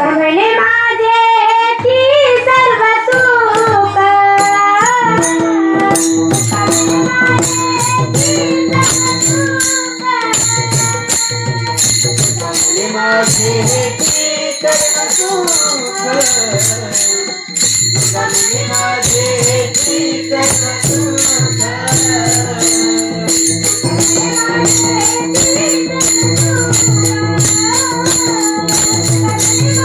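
Marathi kirtan panchapadi sung in a woman's voice, with rhythmic jingling of hand cymbals and a steady low beat.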